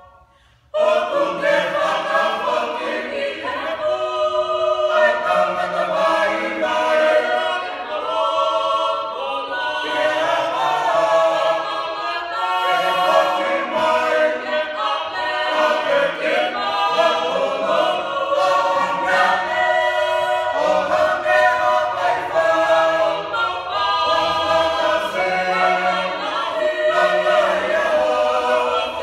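Mixed men's and women's choir singing a Tongan song a cappella in parts. The singing starts again after a brief pause, about a second in.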